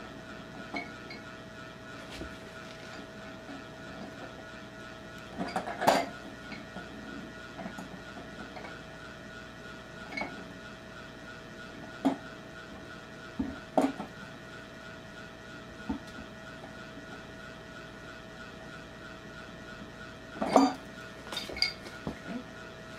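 Wrench clinking against brass plumbing fittings as a threaded fitting on the well-tank tee is tightened: scattered short metallic knocks every few seconds, the loudest about six seconds in and a cluster near the end, over a steady faint hum.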